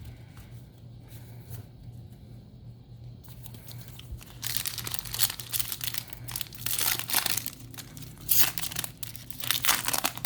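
A Yu-Gi-Oh! booster pack's foil wrapper being torn open and crinkled: a run of irregular crackles that starts about four seconds in, after a few seconds of only a low steady hum.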